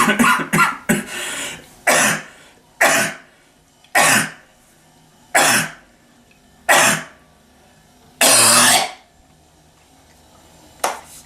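A person coughing repeatedly: a quick run of coughs at the start, then single coughs about every second, the longest one near the end, and a short cough just before the end. It is a cough that has lingered for three weeks after a cold, which the doctor calls a phantom or habit cough.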